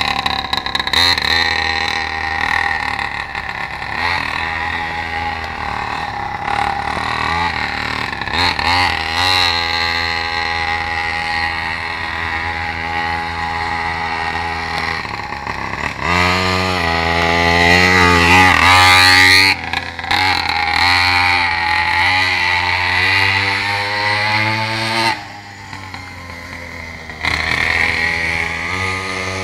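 Mini moto (pocket bike) engine running and being revved. Its pitch climbs for a few seconds around the middle and drops off suddenly, then it settles to a quieter, lower idle for about two seconds near the end before picking up again.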